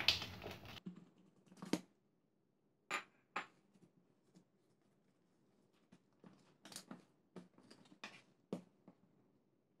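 Plastic cling film rustling as it is pulled off a bowl, then faint scattered taps and soft knocks as soft yeast dough is turned out onto a countertop and divided by hand.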